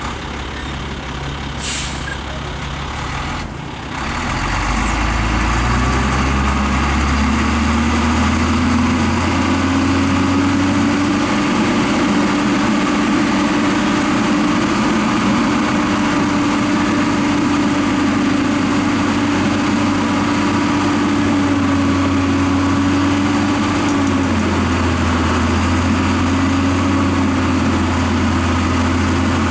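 Dongfeng Hoàng Huy three-axle dump truck's diesel engine idling, then running up to raised, steady revs about four seconds in to power the hydraulic ram that tips the loaded bed. There is a short air hiss about two seconds in.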